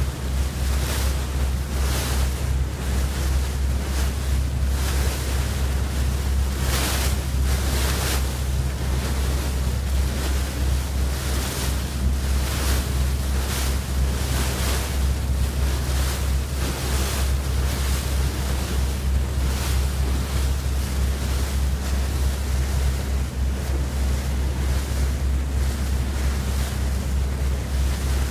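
A boat under way: a steady low engine drone, with wind buffeting the microphone in frequent gusts and water rushing past the hull.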